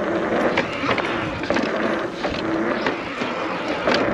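1500-watt Nireeka Mega electric mountain bike riding over a dirt track: 26-inch tires rolling on dirt, with a continual clatter of clicks and knocks from the chain and frame over the bumps. A faint motor whine comes through around the middle.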